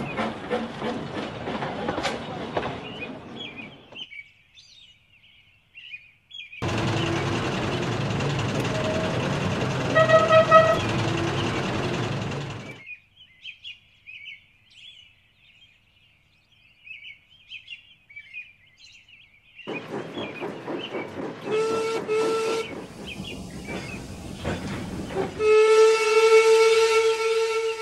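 Steam railway sounds: an even clicking of wheels over rail joints, then a stretch of steady train running noise with a short whistle, and a long, steady steam whistle near the end. Faint bird chirps fill the quiet gaps.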